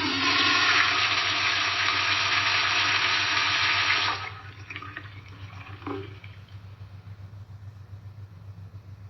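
Toilet flushing: a loud rush of water for about four seconds, then it drops suddenly to a much quieter running trickle that goes on to the end.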